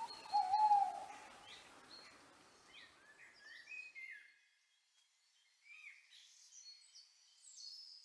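An owl hooting once with a single held, slightly falling note, followed by small birds chirping with short sweeping calls.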